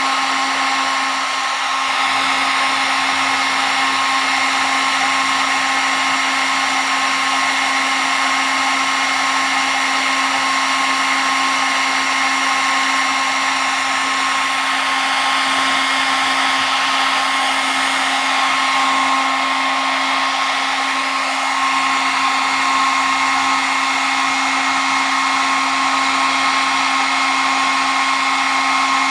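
Handheld hair dryer running continuously on one setting: a steady rush of blown air with a constant motor whine.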